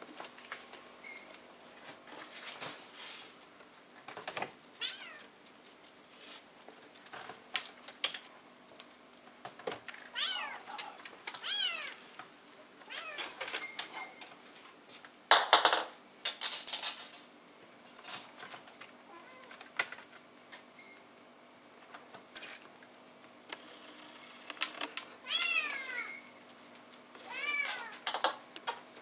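Bengal kittens mewing: short, high-pitched mews that come in small bursts several times, with scattered clicks and taps in between and one louder brief noise about halfway through.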